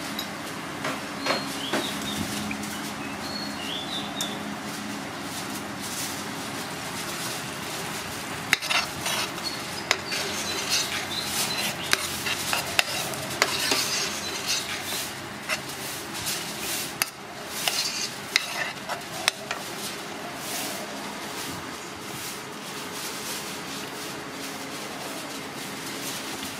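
Metal ladle stirring a pot of simmering Thai green curry, scraping and clinking irregularly against the pot's side, with the clinks busiest in the middle.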